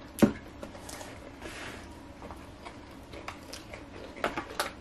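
Close-miked eating of crispy fried food: bites and chewing, with one sharp click about a quarter second in and scattered small clicks and rustles, more of them near the end.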